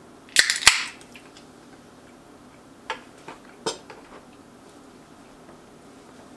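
Aluminium drink can pulled open with two sharp cracks and a short fizz about half a second in. A couple of light knocks follow around three to four seconds in as the can is set down on the table.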